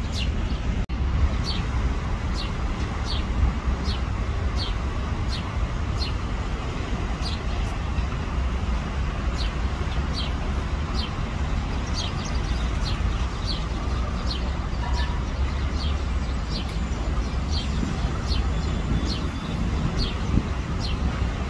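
Steady low traffic rumble, with a bird repeating a short, high, falling chirp about once a second.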